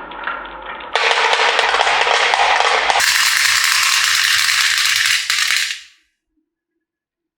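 Marbles rolling and clattering down a wooden HABA marble run: a dense, continuous rattle that changes abruptly twice, louder from about a second in, then fades out into silence near the end.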